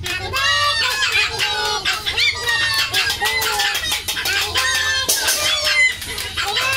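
Chickens clucking, several at once in a dense run of short calls, over a steady low hum.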